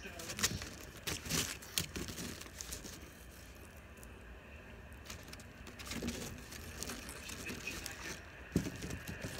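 Crinkling of a fast-food paper wrapper being handled, in spells in the first two seconds, again around five to six seconds in, and near the end, with a quieter stretch between.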